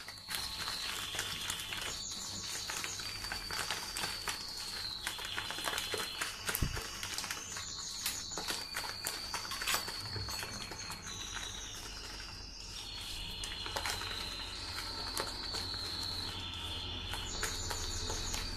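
A hand squishes and works creamed butter, sugar and egg yolks in a stainless steel bowl, with faint soft knocks and scrapes. Over it a bird sings high held whistles and short trills that change pitch every second or two.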